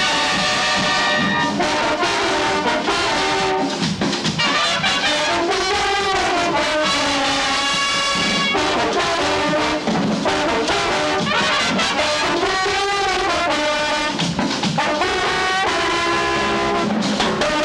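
Brass marching band playing a tune together: trumpets, trombones and sousaphones sounding held notes that swell and slide from one to the next.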